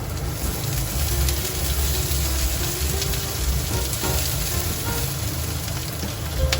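Food sizzling in a frying pan, a steady hiss, with soft background music over it.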